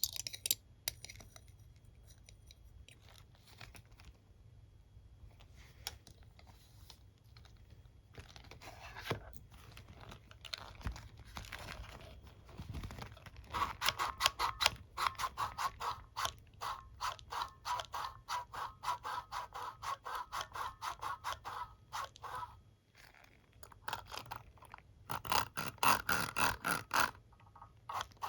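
Hairbrush being touched and scratched: scattered scrapes, then a fast run of regular ticking, about six ticks a second, through the middle and again near the end, as the bristles or teeth are run over and flicked.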